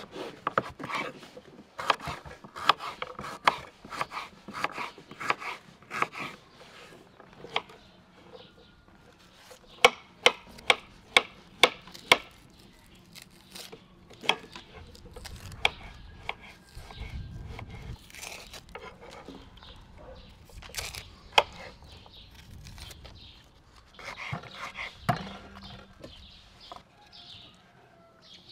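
Kitchen knife slicing carrots on a wooden cutting board: sharp knocks of the blade hitting the board, about two a second through the first half, then only a few scattered knocks.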